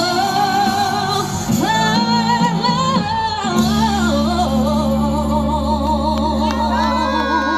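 Live singing with accompaniment at the close of a romantic ballad: a voice holds long, wavering notes over steady sustained chords, and the accompaniment stops near the end.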